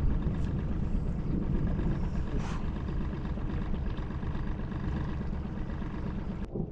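Small fishing boat's outboard motor running steadily under way, a continuous low engine drone.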